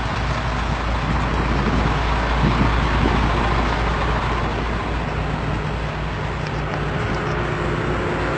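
Heavy diesel machinery engines running steadily under load, with a deep continuous rumble.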